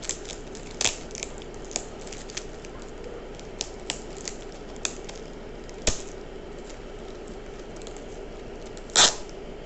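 Coins and their packaging being handled: scattered light clicks and crinkles, with louder sharp rustles about a second in, near six seconds and near the end, over a faint steady hum.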